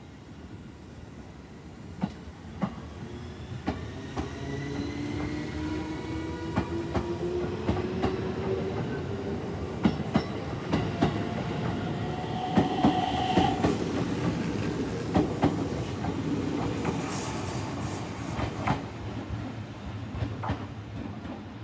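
JR 211 series electric multiple-unit train pulling away: its traction motors whine and rise in pitch as it accelerates, and the wheels click over the rail joints, the clicks coming faster as it gathers speed.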